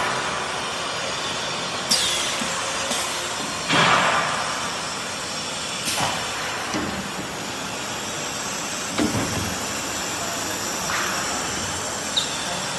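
Steady workshop machinery noise from a CNC router's automatic loader, broken by several short hisses of compressed air as its pneumatic suction cups and cylinders grip, lift and release a plywood sheet. The loudest hiss comes about four seconds in.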